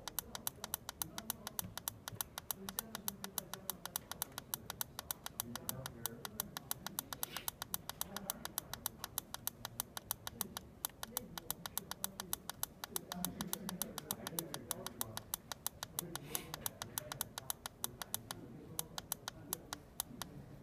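Rapid, even clicking, about six a second, from an MBJ20 transcutaneous bilirubin meter as its reduce button is held during calibration and the displayed value steps down. The clicks thin out and stop near the end.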